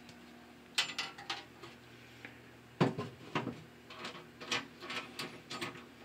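Steel door of a Simplex 4001 fire alarm control panel being shut and locked: a few light clicks about a second in, a sharp clank of the door closing near three seconds, then a string of small clicks and rattles as the key is worked in the door lock.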